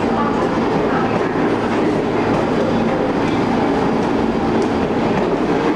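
Pullman-Standard R46 subway cars running out of the station at close range: a steady, loud rumble of steel wheels on the rails, with faint clicks over the rail joints.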